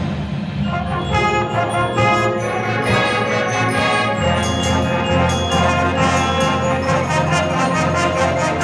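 Marching band playing, brass holding chords, with a strong low bass part coming in about four seconds in.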